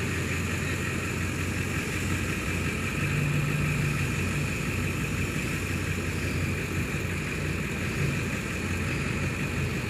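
Truck engine running steadily under load as a Ford F-350 pickup pulls on a chain to drag a stuck semi tractor.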